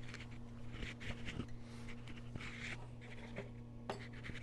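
Faint scraping and small metal clicks of pliers working at a snap ring inside a tractor transmission, over a steady low electrical hum.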